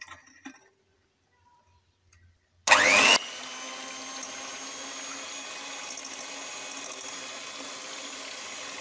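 Electric hand mixer switched on nearly three seconds in, with a brief loud rising whine as it starts. It then runs steadily, its beaters whisking liquid cake batter in a glass bowl.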